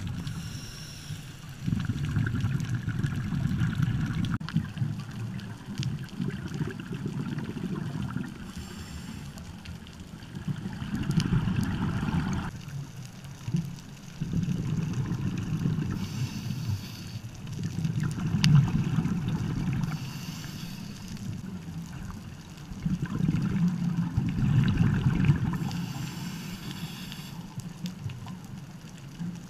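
Scuba diver's regulator breathing, heard underwater through a camera housing: bubbling rumbles of exhaled air that swell for a few seconds at a time, with quieter stretches between breaths.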